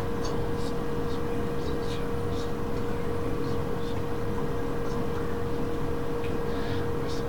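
Steady electrical hum with one constant mid-pitched tone over low background noise, and faint short hissing sounds scattered through.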